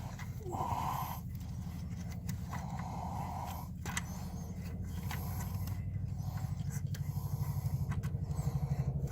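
Clicks and scraping of a brake light switch being turned and seated into its bracket above the brake pedal, over a steady low pulsing hum.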